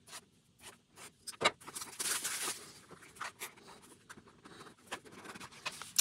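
A taped, sealed cardboard product box being opened by hand: soft scraping and rubbing of card and tape, with scattered light taps and clicks, the clearest about a second and a half in.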